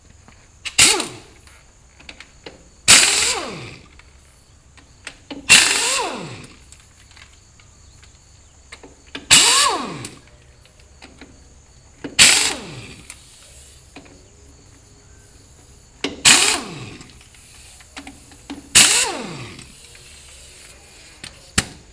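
Impact wrench run in about seven short bursts a few seconds apart, each burst winding down in a falling whine, taking the wheel off a narrow-front tractor's front axle to change a flat tire.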